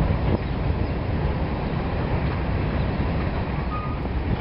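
A Norfolk Southern freight train's cars rolling past, a steady low rumble of wheels on the rails.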